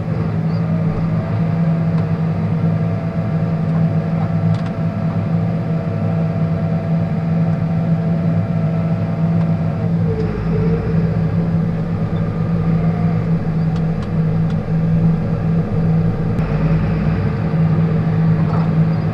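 John Deere tractor's engine running steadily, heard from inside the cab, with a faint steady whine over it for the first half and a deeper low rumble added about halfway through.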